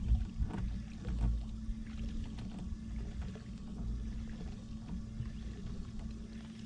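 Water lapping and splashing against a fishing boat's hull over a steady low hum, with wind rumbling on the microphone.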